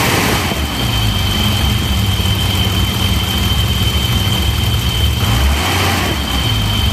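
BMW M30B35 3.5-litre straight-six engine idling with a vacuum leak present, with a steady high-pitched whine over the engine throughout. The engine note shifts slightly about five seconds in.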